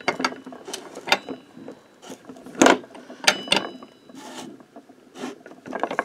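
Metal tools clinking and knocking on a moped variator clamped in a variator vise, as a breaker bar and socket tighten its nut. There are a handful of irregular sharp clicks, some with a brief metallic ring, and the loudest comes a little before the middle.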